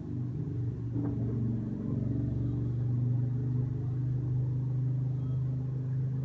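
Steady low rumble of a running machine, with a constant hum.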